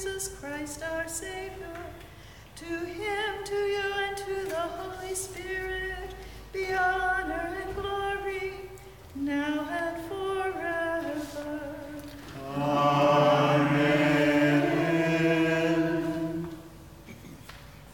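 A woman's voice chanting a liturgical text unaccompanied, in short melodic phrases. Near the end several voices join in a louder, longer sung phrase that stops a second or so before the end.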